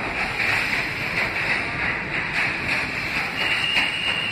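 An NYC Subway R160A train running out of an underground station at speed: a steady rush and rumble of steel wheels on rail, with faint irregular clicks. A steady high-pitched tone comes in about three and a half seconds in as the tail end passes.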